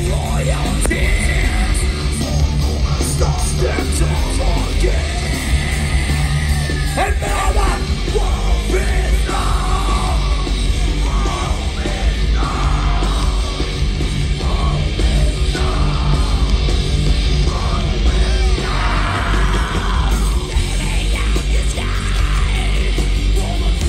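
Heavy metal band playing live through a festival PA, heard from inside the crowd: pounding bass and drums under distorted guitars, with a screamed vocal that comes in strongest through the middle.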